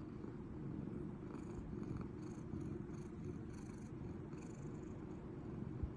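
A sleeping cat's low, steady rumble, which the owner calls snoring. There is a soft bump near the end.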